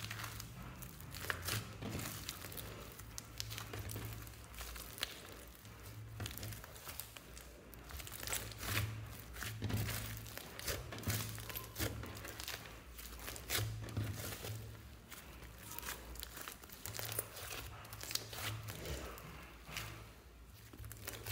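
Thick glossy slime being squeezed, kneaded and stretched by hands, giving a dense, irregular run of small crackling clicks and pops.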